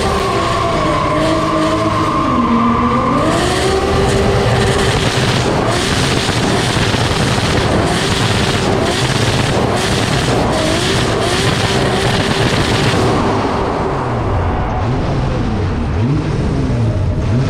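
Drift car's engine held at high revs through smoky donuts, the revs rising and falling, with tyres squealing as it slides.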